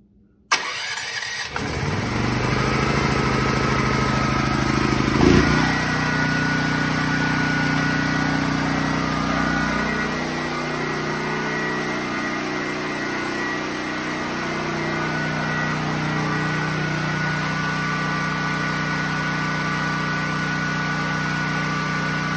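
DuroMax XP10000E generator's 18 hp, 439 cc single-cylinder engine started by its electric starter from the remote-start circuit: it turns over and catches within about a second. It then runs steadily, with a short louder burst about five seconds in after which the engine note changes slightly and holds.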